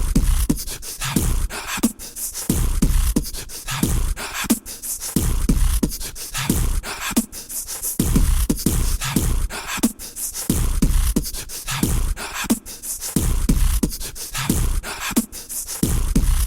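Intro music with a steady, driving beat: repeated deep bass thumps with short pitched notes and crisp percussion clicks over them.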